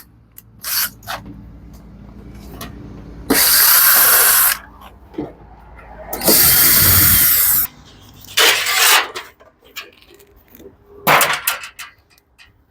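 Power screwdriver or drill run twice in bursts of about a second and a half each, driving out screws from the refrigerator's rear cover panel. Clicks and knocks of handling the panel and screws come between and after the runs.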